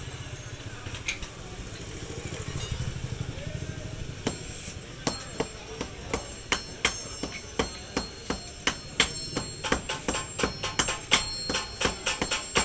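Two sledgehammers taking turns striking hot steel on an anvil as a garden trowel blank is hand-forged: sharp ringing blows begin about four seconds in, about two to three a second, quickening towards the end. Before the blows, a low steady hum.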